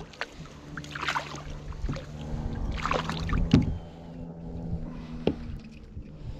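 Splashing at the water beside a kayak as a hooked pejerrey is lifted out of the lagoon on the line, in a few irregular splashes, the loudest about three and a half seconds in, then a short sharp click near the end.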